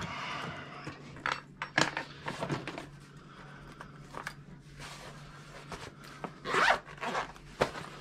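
Tools being handled and packed into a soft tool bag: scattered rustles and light clinks, with a longer zipper-like rasp about six and a half seconds in.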